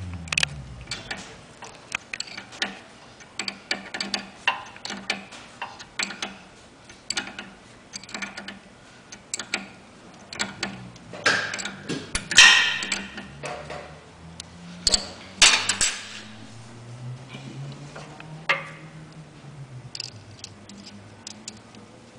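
Irregular metallic clicks and clinks of hand tools on the brass fittings of a truckmount chemical pump being reinstalled, with a denser, louder clatter about halfway through.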